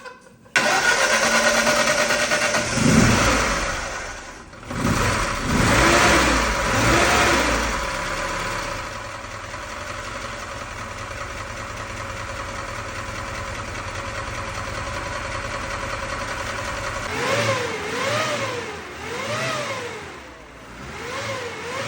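VAZ-2102 Zhiguli engine catching about half a second in after a rebuild, revved a few times, then settling to a steady idle; near the end the throttle is blipped about six times in quick succession, the pitch rising and falling with each blip.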